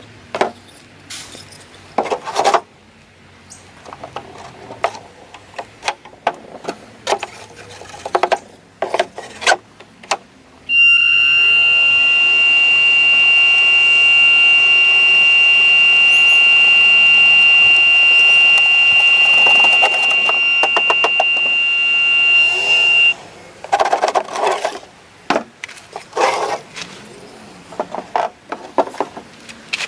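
Small 12-volt blower fan on a homemade seed winnower is switched on about ten seconds in and runs with a loud, steady high whine for about twelve seconds, then stops abruptly. Before and after it run, there are scattered knocks and rattles of small wooden seed trays being handled.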